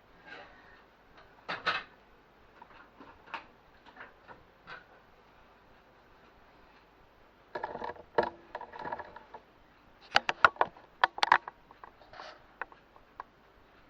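Kitchen handling noise: scattered clicks, knocks and clinks of a baking dish and utensils being moved about, with a quick run of sharp clicks about ten seconds in.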